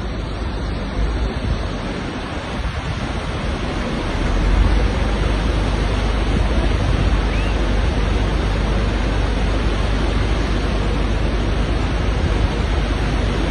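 Muddy flash-flood torrent rushing, a loud, steady noise that swells a little about four seconds in.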